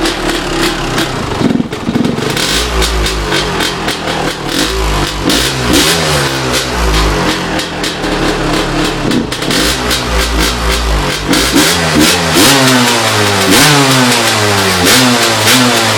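1997 Honda CR250R two-stroke single-cylinder dirt bike engine, fitted with a Pro Circuit pipe and exhaust, running and being revved up and down. From about two-thirds of the way in the throttle is blipped in quick repeated rises and falls.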